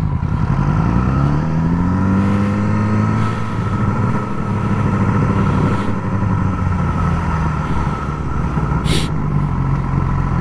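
Yamaha R6's inline-four engine through its Graves slip-on exhaust, revving up under acceleration over the first couple of seconds, then running at a fairly steady pitch while riding. A brief hiss comes near the end.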